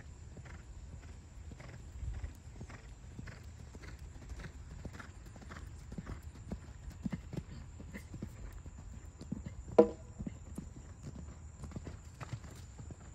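A ridden horse's hooves beating steadily on sand arena footing, about two beats a second. About ten seconds in, a short, loud pitched call stands out over the hoofbeats.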